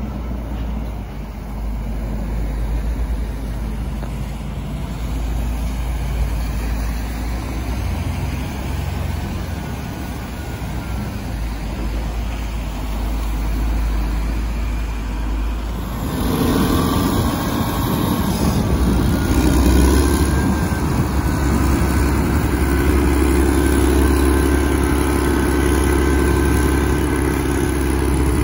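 Caterpillar 160M motor grader's diesel engine running as it clears snow from the road, with passing traffic. About halfway through the sound jumps suddenly louder and closer, a steady engine drone with a noisy wash on top as the grader works just ahead.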